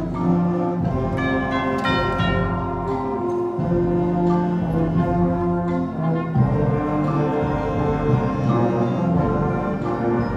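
School band playing a sustained, brass-heavy passage of full chords, with a bright run of high notes about two seconds in.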